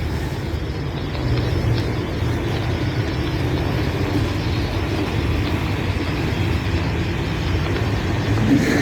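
Freight train of autorack and intermodal cars rolling slowly past, a steady rumble with a low hum. It gets louder near the end, a noise the railfan puts down to the refrigeration units on the containers.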